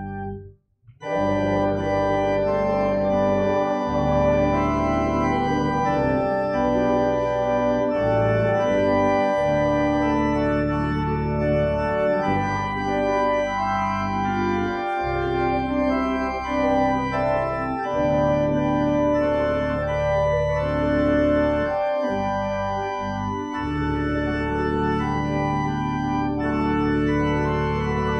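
Church organ playing held chords over a low bass line. The chords change every second or two, after a brief break about a second in.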